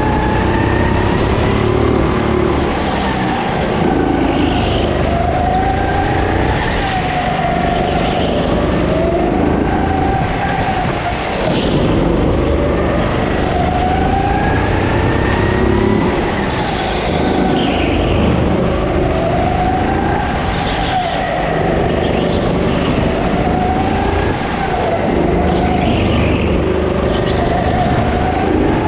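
Go-kart motor heard from the driver's seat while lapping an indoor track. Its pitch climbs on the straights and drops for the corners every few seconds, over a steady rumble.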